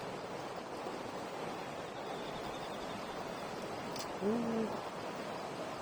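Steady hiss of a campfire burning, with one sharp pop about four seconds in. Just after the pop comes a brief, short vocal sound from a man.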